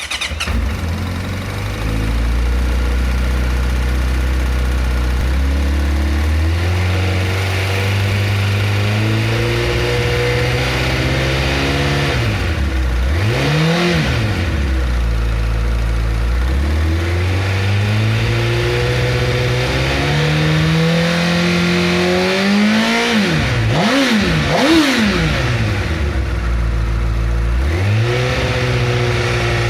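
Honda CBR1000RR Fireblade's inline-four engine held at rising revs in slow steps from idle, with a quick drop and pickup about halfway through. Later come three quick throttle blips, then the revs fall back and start climbing again near the end.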